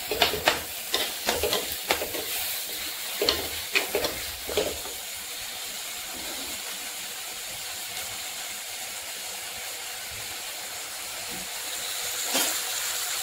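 Onions and tomatoes sautéing in oil in a clay pot, a steady sizzling hiss. For the first few seconds a spoon scrapes and knocks against the clay pot as the mixture is stirred, then only the sizzle goes on.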